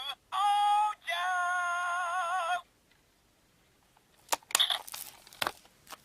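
Electronic sound effects from the Zyuoh Changer Final toy's speaker: a short steady synthetic tone, then a longer warbling one. Near the end come a few sharp plastic clicks from handling the toy or pressing its buttons.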